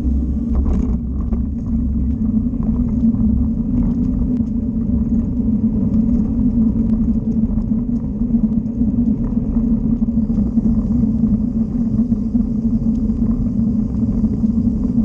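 Steady rumble of riding along a paved path: wind buffeting the microphone and wheels rolling, with a constant low hum underneath.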